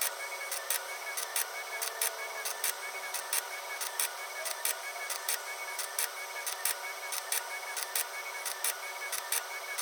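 Motors of a desktop robotic blacksmithing rig running, a steady whir with sharp clicks about three times a second.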